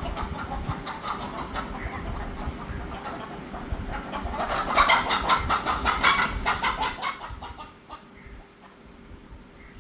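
Chickens clucking, growing to a busy flurry of rapid calls about halfway through, then quieting down near the end.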